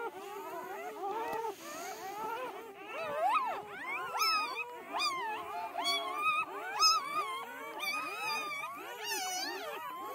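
A litter of newborn Kangal puppies whining and squealing together in many overlapping high cries. Sharper, louder squeals break through from about four seconds in.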